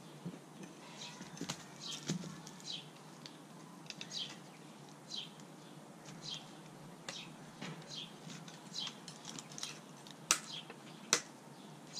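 Small birds chirping repeatedly, short high notes that slide downward, one every second or so. Two sharp clicks near the end stand out as the loudest sounds.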